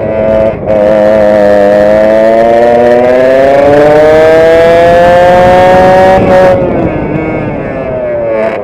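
Vintage racing kart's two-stroke engine heard onboard, dipping briefly about half a second in, then revving up in a long steady rise in pitch as the kart accelerates. After about six and a half seconds the throttle closes and the revs fall away.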